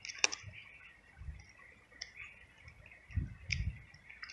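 Tabby kitten chewing dry kibble, a few sharp crunches and clicks spaced out over the seconds. Low rumbling wind buffets hit the microphone twice.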